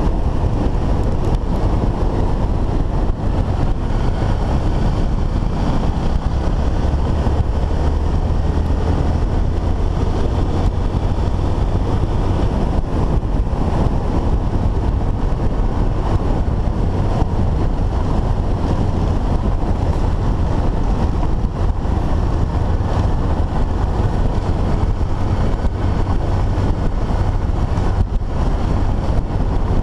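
Single-cylinder dual-sport motorcycle engine running steadily at cruising speed, mixed with heavy wind rush on the bike-mounted microphone and tyre rumble from the dirt surface.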